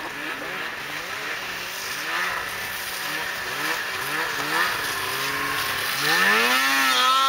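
Snowmobile engine running across snow, its pitch rising and falling over and over. It grows louder and higher about six seconds in as the sled comes closer.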